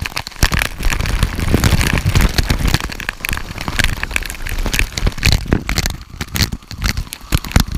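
Rushing waterfall water pounding and splashing close on the microphone: a loud, dense crackle of many sharp spatters over a deep rumble.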